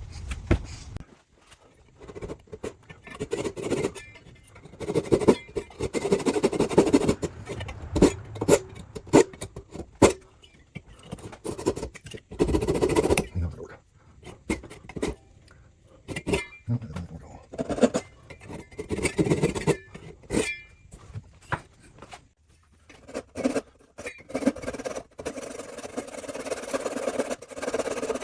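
Workshop work noises: irregular knocks, clatter and scraping of wood pieces and tools being handled, broken by several abrupt cuts.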